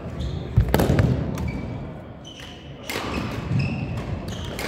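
Badminton doubles play on a hall court: sharp racket hits and thudding footsteps, with a heavy thud about half a second in, and short high shoe squeaks on the court floor.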